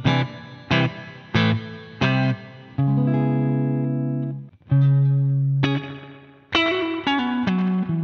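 Electric guitar playing chords through reverb pedals, first a Caline G008 Barn Owl Reverb and, in the later part, a Mosky Spring Reverb. Chords are struck about every half second to second, with two held longer in the middle, and each rings out with a fading reverb tail.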